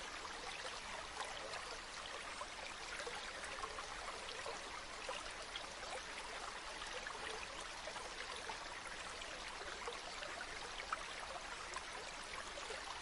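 Flowing water running steadily, with many small splashes throughout.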